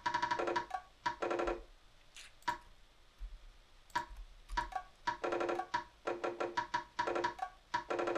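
Programmed percussion samples playing back as a short looping beat pattern: quick runs of short, pitched, wood-block-like hits, thinning to just a couple of hits for about two seconds near the middle before the runs resume.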